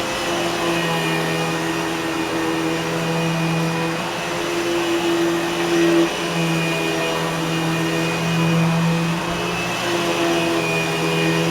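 Eureka Boss Smartvac 4870 upright vacuum cleaner running steadily, a motor hum over rushing air, its pitch wavering slightly now and then.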